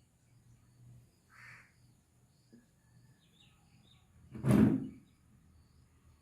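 Quiet rural background with faint bird chirps, and one loud dull thud lasting under a second about four and a half seconds in.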